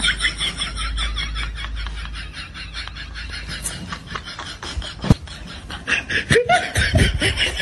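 Laughter: a quick, even run of short laughs, several a second, tailing off in the middle, then a few separate short sounds near the end.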